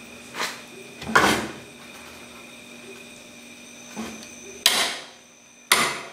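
Click-type torque wrench pulled on a Dana 60 pinion yoke nut, the yoke held by a pipe wrench: about five sharp metallic clacks, the loudest a little over a second in. The two near the end, about a second apart, are the wrench clicking off at its 250 ft-lb setting.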